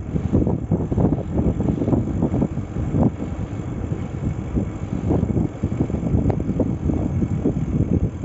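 Wind buffeting the microphone of a camera on a moving bicycle: a low, rough rumble that rises and falls unevenly.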